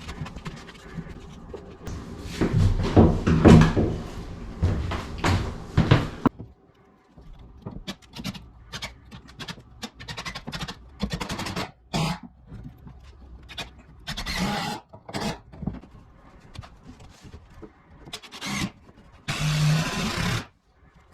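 Rasping and scraping in quick repeated strokes for a few seconds, then scattered knocks and clicks, with short bursts of scraping later on: hand-tool work on a wall.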